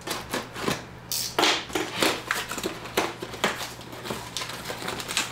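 A long cardboard box being opened and unpacked by hand: a quick, irregular run of tearing, scraping and rustling with sharp clicks and knocks.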